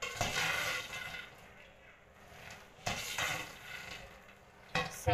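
Steel spoon stirring and scraping popped popcorn in an aluminium pot, in three separate strokes.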